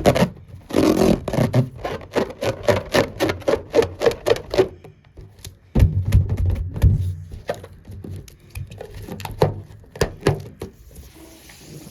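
Rubber balloon sounds: a rapid run of short squeaky pulses, about five a second, for a few seconds, then a few low thumps and scattered clicks.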